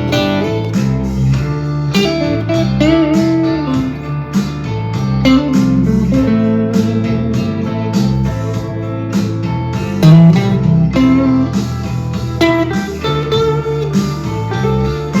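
Harley Benton TE-62CC SFG Telecaster-style electric guitar played through an amp: bluesy lead lines with string bends over a backing track with a steady bass line.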